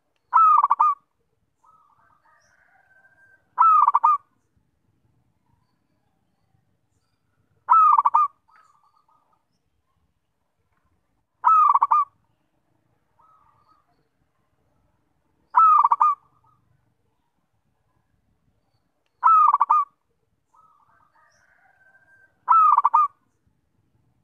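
Zebra dove cooing: a short, rapid phrase of coos repeated seven times, about every four seconds, with fainter notes between some of the phrases.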